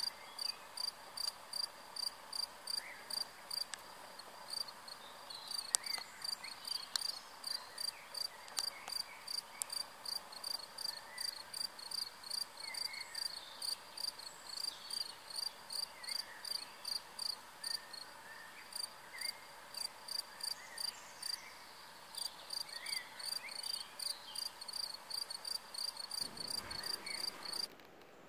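A cricket chirping steadily, about two to three short high-pitched chirps a second, stopping abruptly near the end.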